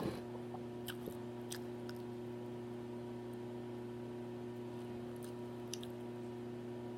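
Quiet chewing with a few faint, sparse mouth clicks, over a steady electrical hum.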